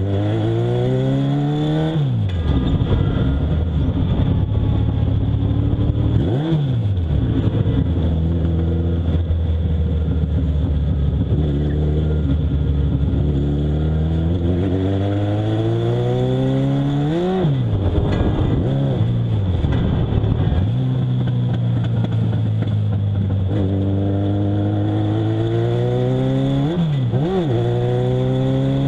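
Legend race car's Yamaha four-cylinder motorcycle engine, heard from inside the cockpit, pulling the car up to speed. Its pitch climbs and falls back sharply several times as the revs drop at gear changes or lifts, and it holds a steady note for several seconds in the middle.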